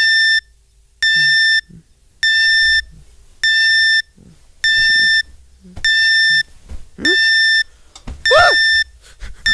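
Electronic alarm clock beeping: a steady high beep about half a second long, repeating a little faster than once a second, with soft rustling between beeps.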